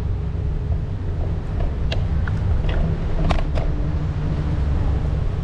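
Steady low rumble of an electric scooter rolling along pavement, heard as wheel and wind noise on the camera's microphone, with a few sharp clicks about two to three and a half seconds in.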